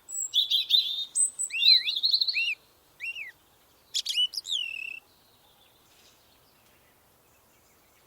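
A songbird singing: quick chirps and short arched whistled notes in three phrases, stopping about five seconds in.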